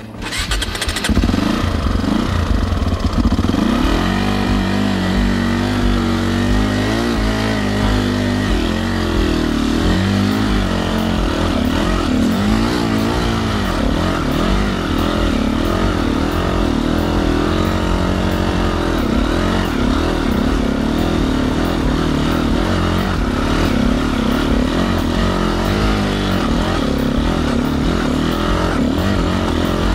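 Enduro motorcycle engine running hard as it is ridden over rocky ground, its revs rising and falling again and again.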